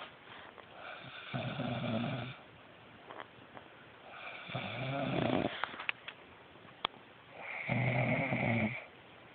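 A person snoring in their sleep: three loud snores about three seconds apart, each lasting about a second.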